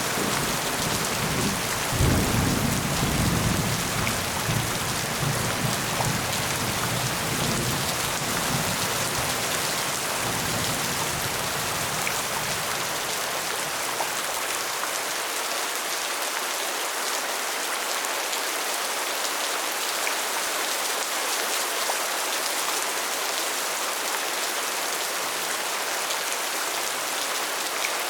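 Steady heavy rain hissing, with scattered drops ticking. About two seconds in, a roll of thunder breaks in suddenly, rumbles, and dies away over roughly twelve seconds.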